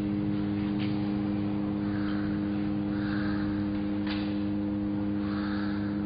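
A machine running with a steady low hum under a constant hiss, with two faint clicks, one about a second in and one about four seconds in.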